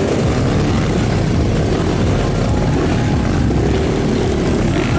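Several trail motorcycle engines running together at close range, idling and revving unevenly as the bikes pull away from the start.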